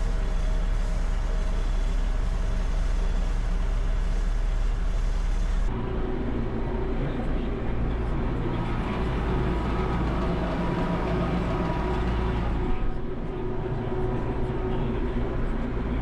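New Holland tractor engine running steadily, heard from inside the cab while pulling hay equipment in the field. About six seconds in, a cut changes the drone as the work switches from raking to baling with a John Deere 430 round baler behind.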